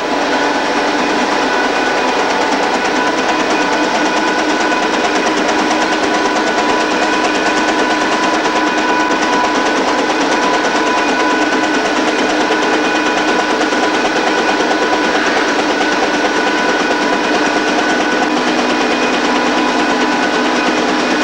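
Factory machinery running in an aerated-concrete block plant: a steady, loud mechanical din with several constant tones through it.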